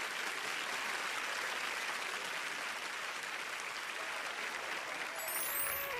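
Studio audience applauding steadily. Near the end a short rising high-pitched sweep comes in as the beatbox act begins.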